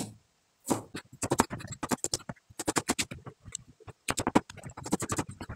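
A cleaver chopping pak choi stems on a plastic cutting board: quick knocks of the blade through the stalks onto the board, several a second, in runs with a brief pause near the middle.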